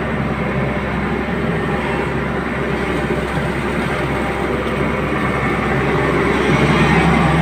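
Excavator's diesel engine running steadily under load, a continuous low drone that grows somewhat louder in the last second or so.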